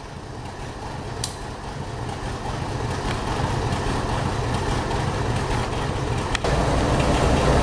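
Diesel-electric locomotive engines, the new GE ES43BBI among them, running with a steady deep rumble that grows slowly louder. The level steps up abruptly about six seconds in.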